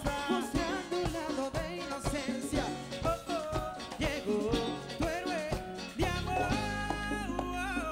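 A live Latin dance band plays a song: steady conga and timbale strikes over a drum kit, under wavering melody lines. A heavy low bass note comes in about six seconds in.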